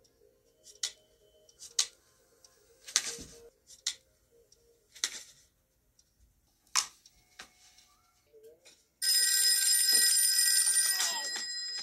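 Scattered faint clicks and taps, then about nine seconds in a telephone bell starts ringing loudly and keeps on ringing, a little softer near the end.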